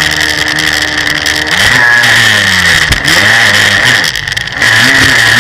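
Jet ski engine running at speed, its revs rising and falling repeatedly as the craft rides over wake and chop, over the hiss of rushing water and spray. It eases off briefly about four seconds in, then picks straight back up.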